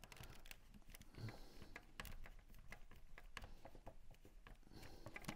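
Faint, irregular clicks and taps of a Land Rover Defender L663 overhead console's plastic housing and circuit board being handled and worked apart by hand.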